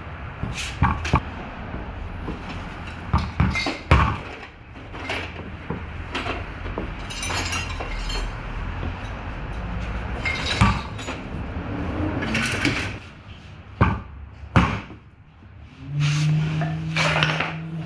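Irregular metallic knocks, clicks and scraping of hand tools and parts being worked on a car's fuel tank and in-tank fuel pump, with a short steady low hum near the end.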